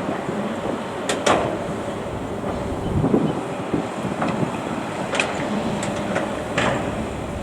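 Excavator running at a work site with its engine and hydraulics going steadily, broken by a few sharp metallic clanks or squeaks: two close together about a second in, then more later.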